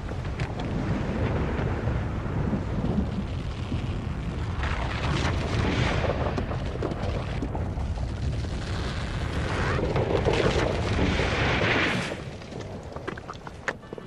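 Rockfall during an earthquake: a deep, continuous rumble with rocks crashing and clattering down a cliff, swelling twice and dying away near the end.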